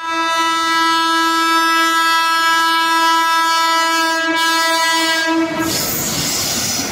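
A WAP-5 electric locomotive's horn sounds one long, steady blast as the train approaches. The blast breaks off about five and a half seconds in, leaving the noisy rush of the oncoming train.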